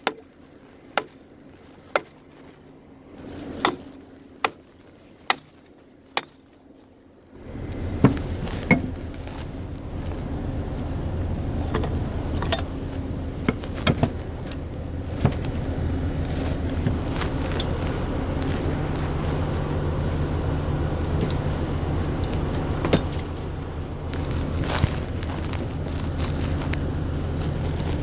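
Footsteps about once a second on snow, then from about seven seconds in the steady low hum of a drilling rig's engine running, with scattered knocks and clanks over it.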